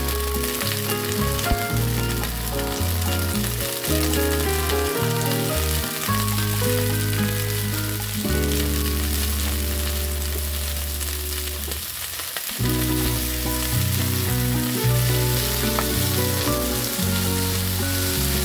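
Asparagus spears sizzling as they fry in a pan. Background music with held low notes plays throughout.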